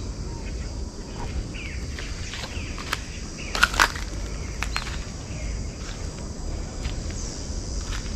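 A steady, high-pitched insect chorus with short bird chirps scattered through it. A couple of sharp snaps or clicks come about three and a half seconds in and are the loudest sounds.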